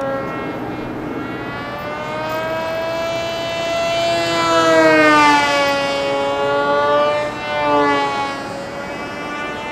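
Electric motor and propeller of a Combatwing XR RC flying wing whining in flight, the pitch rising and falling, loudest about five seconds in.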